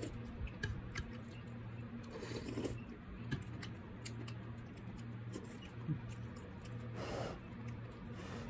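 Close mouth sounds of a person eating rice and soft goat-foot sinigang: chewing with lip smacks and many small wet clicks, over a steady low hum, with a couple of short breathy sounds.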